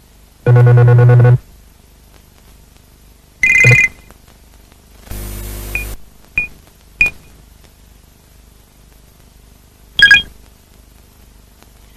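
Electronic computer sound effects: a loud, low buzzing tone lasting about a second near the start, then scattered short beeps and pips, with a brief burst of hiss about five seconds in and a last beep near ten seconds.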